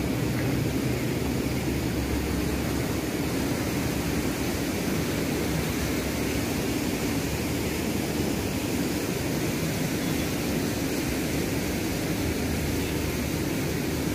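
River water flowing: a steady rushing noise.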